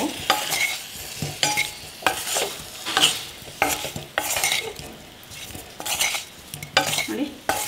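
Wooden spatula stirring and scraping baby corn and button mushrooms around a stainless steel pan in repeated strokes, about two a second, with a light sizzle as they fry in the peri-peri spice mix.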